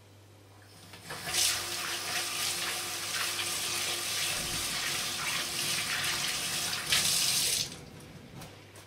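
Kitchen tap running into a stainless steel sink while soapy hands are rinsed under the stream. The water comes on about a second in and is turned off shortly before the end.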